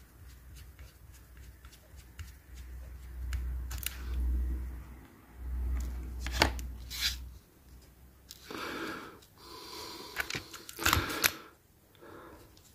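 Faint ticking of a small screwdriver turning the body fixing screw into a Hornby Bulleid Pacific model locomotive's plastic body. Handling noise follows: a low rumble, a few sharp clicks, and about eight seconds in a clatter of small plastic parts being moved and set down on the table.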